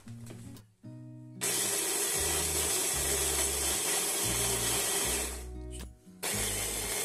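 Bosch MaxoMixx hand blender running in its chopper attachment, grinding oat biscuits into crumbs. It starts about a second and a half in, stops for a moment near six seconds, then runs again.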